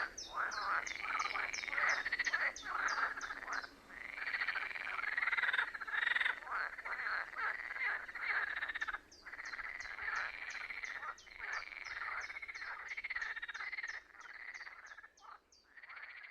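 A dense chorus of many frogs croaking together in rapid, pulsing calls, with brief breaks now and then. It grows quieter over the last couple of seconds.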